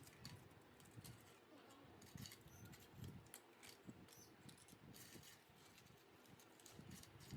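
Near silence with faint, irregular clicks and taps, and one sharper tick near the end.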